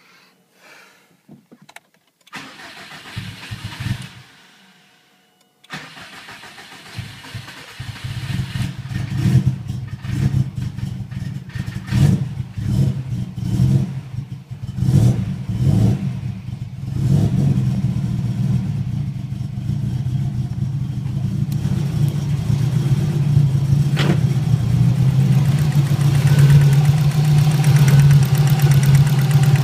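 Subaru STI's turbocharged flat-four engine starting up, given a series of short throttle blips, then settling into a steady idle. It carries a tapping noise that the owner doesn't take for rod knock and suspects is in the valve train, appearing after antilag was set up.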